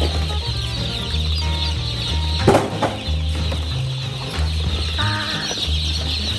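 A crowd of newly hatched chicks peeping all at once, a dense high-pitched chorus of overlapping chirps, with background music and its bass line underneath. One sharp knock about two and a half seconds in.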